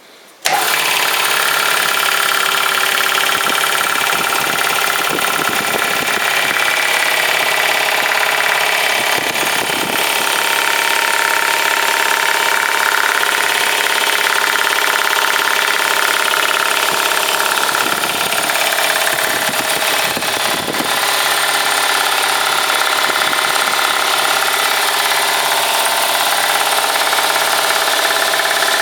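Eurocompress air compressor switching on about half a second in and then running loudly and steadily.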